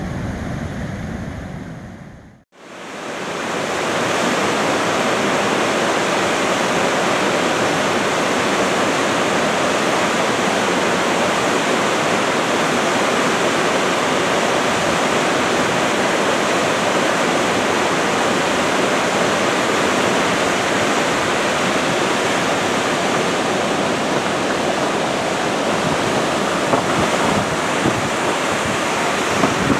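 Steady rush of creek water tumbling over rocks, a loud even roar that begins after a brief drop-out about two seconds in.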